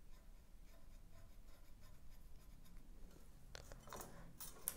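Faint scratching of a marker pen on an aluminium rod, then a few light clicks and knocks near the end as a small tool is handled against the rod.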